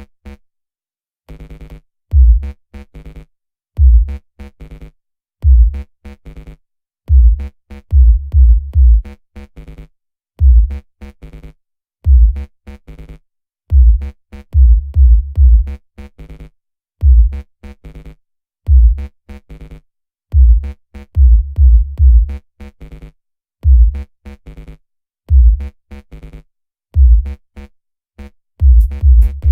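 Bass-boosted electronic music: heavy, very deep bass hits in a repeating drum-machine rhythm with lighter synth notes above. The music drops out briefly about a second in, then comes back in.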